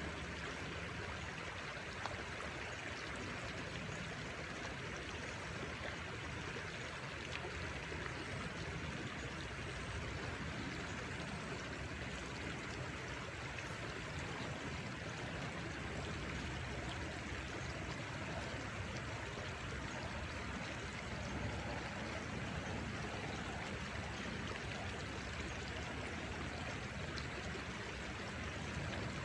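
Steady, even rush of flowing river water, unchanging throughout.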